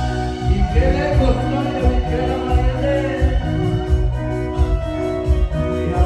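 A live band playing a chilena, the Oaxacan dance music, through a PA. A steady, bouncing bass beat and repeating chords carry it, with singing over them.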